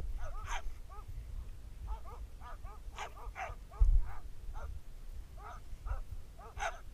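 A team of sled dogs in harness yipping, barking and whining in a quick, irregular string of short high calls, the restless noise of sled dogs impatient to run. A low thump about four seconds in.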